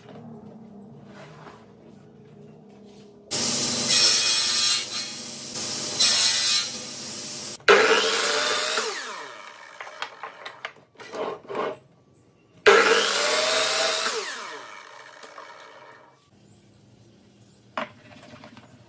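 Sliding compound miter saw cutting through a wooden block: two loud cuts, each followed by a falling whine as the blade winds down. A small click near the end.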